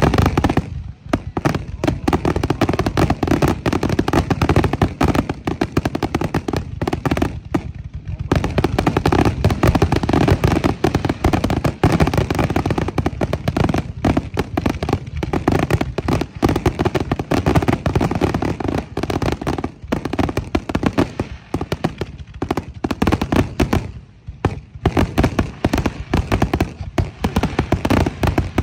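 Fireworks show in a dense barrage: aerial shells bursting and crackling in rapid, near-continuous succession, with only a few brief lulls.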